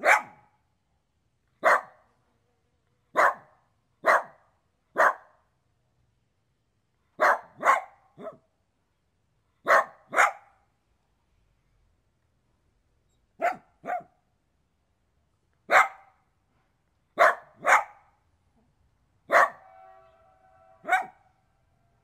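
A dog barking: short, sharp single barks and quick pairs with silent gaps between, about seventeen in all. One bark a little before the end is longer and more drawn out.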